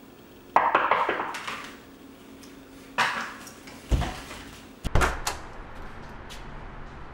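A few separate knocks and thumps, four in about five seconds, each dying away quickly, with a house door being opened.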